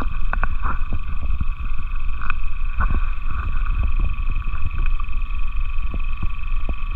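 A steady chorus of frogs calling over a loud low rumble, broken by frequent short splashes in shallow water.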